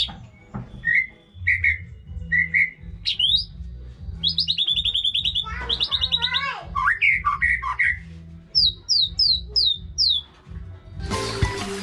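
White-rumped shama singing a varied song of clear whistled phrases and buzzy trills, with a run of five quick downward-sweeping notes near the end. Music comes in just before the end.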